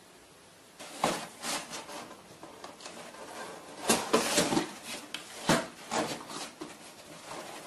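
Irregular knocks, bumps and scraping rubs, starting about a second in, loudest around the middle and fading toward the end.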